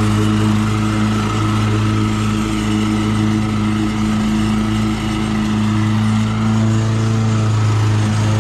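Toro Commercial 21-inch heavy-duty walk-behind mower's engine running at a steady speed.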